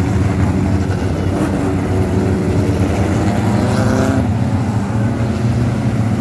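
Several ministock race cars' four-cylinder engines running together on a dirt oval, a steady loud mix of engines. About four seconds in, one engine revs up.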